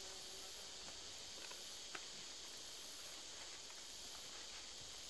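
Faint outdoor ambience: a high-pitched insect chorus pulsing on and off about once a second. A few soft page rustles and a light tick about two seconds in come from a Bible being leafed through.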